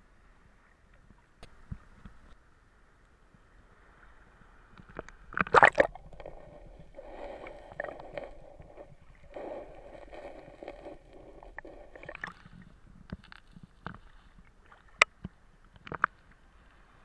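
Sea water splashing and sloshing around a camera held at the surface: a loud splash about five seconds in as the water washes over it, then several seconds of muffled gurgling, followed by scattered sharp clicks and knocks.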